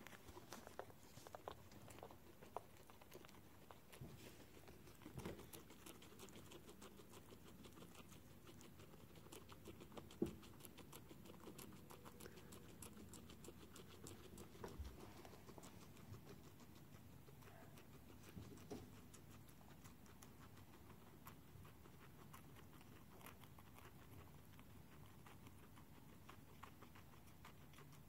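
Guinea pigs chewing fresh cilantro: a faint, steady run of small, quick nibbling clicks, with a few louder clicks here and there.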